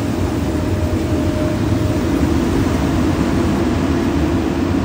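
Hydraulic excavator's diesel engine running steadily at close range.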